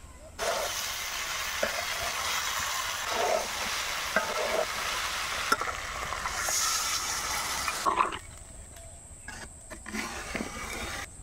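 Taro root pieces frying in oil in an iron karahi with a loud, steady sizzle as water is poured in. About eight seconds in the sizzle stops abruptly, leaving the simmering curry being stirred with a ladle, with light scattered knocks.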